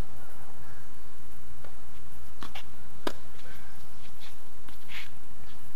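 Tennis rally on a hard court: a series of sharp knocks as the ball is struck by racquets and bounces on the court, the loudest about three seconds in, over a steady low rumble.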